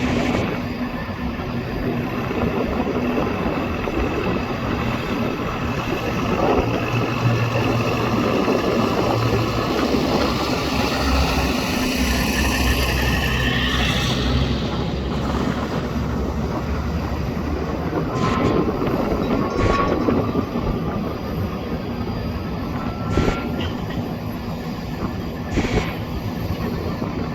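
Boeing 707-based AWACS aircraft landing: a steady roar from its four jet engines, with a high whine that rises in pitch and breaks off about halfway through as it passes. A few short clicks come later.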